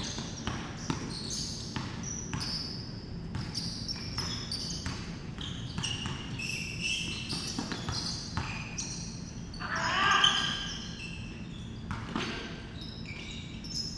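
Basketball dribbling and bouncing on a hardwood-type court floor, with sneakers squeaking and players' voices, one louder call about ten seconds in.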